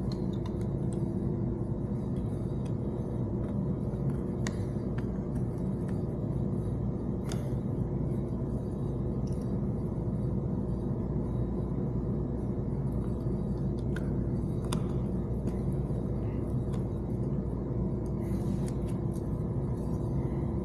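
A steady low rumble of running machinery with a few held tones, and scattered light clicks and taps from parts being handled.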